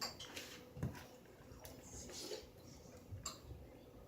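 Faint handling noises: a few soft knocks and rustles, the strongest knocks about a second in and again near the end.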